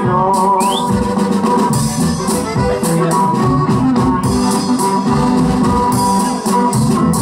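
Live norteño band playing an instrumental passage: an accordion carries the melody over guitar and a steady drum beat.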